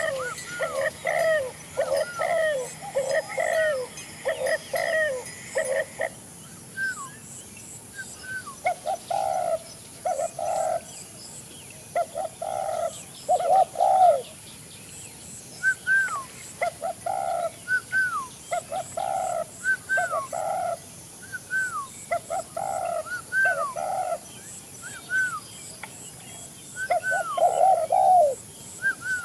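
Spotted doves (tekukur) cooing in repeated short phrases, alternating with short falling whistled notes from other birds. The calling is denser and overlapping for the first few seconds, then changes abruptly to spaced-out coos and whistles.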